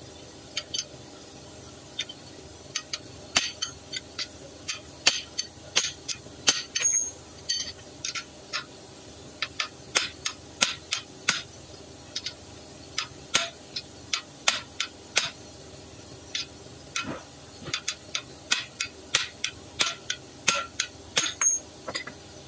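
Steel hand tools clinking and tapping: sockets and a T-bar wrench knocked together, set down on a concrete floor and fitted to the wheel hub nuts, giving many short sharp metallic clicks at an irregular pace.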